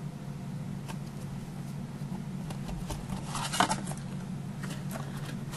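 Paper and card rustling and tapping as a decorated paper square is handled and pressed onto the side of a small paper box, a cluster of louder rustles a little past halfway. A steady low hum lies underneath.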